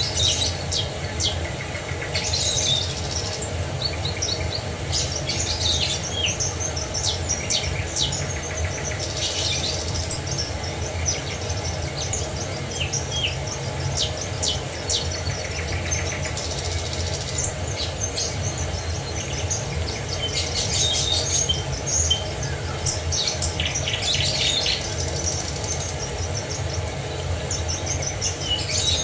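Several songbirds chirping and trilling, with short overlapping calls throughout, over the steady low rush of a waterfall.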